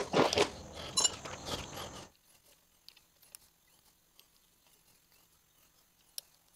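Close rustling and clunking next to the microphone, handling noise for about two seconds with a short high squeak about a second in. Then near quiet with a few faint clicks.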